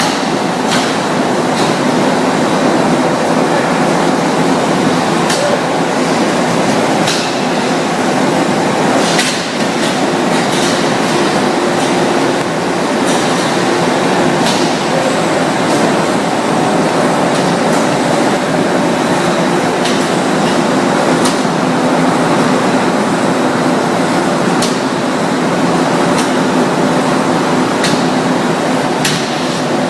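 Meat grinder running steadily: a continuous mechanical hum with scattered sharp clicks.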